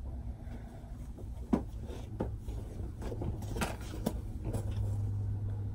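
Light rustling and a few short, scattered knocks as a package is handled and unwrapped, over a low steady hum.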